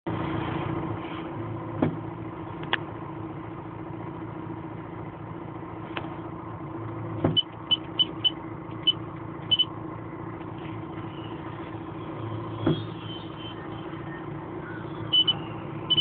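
Diesel engine of heavy machinery running steadily, heard from inside a cab, with a few sharp knocks. About halfway through comes a run of short high-pitched tones.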